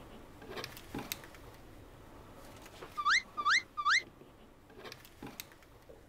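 Three quick rising whistle-like chirps, about half a second apart, a comic sound effect of the kind laid over a variety show. A few faint knocks come before and after.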